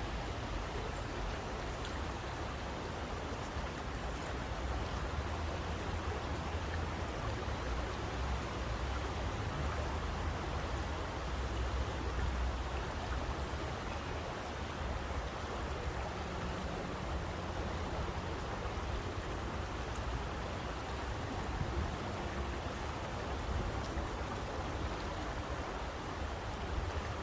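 Steady rushing water, an even noise with a strong low rumble beneath it.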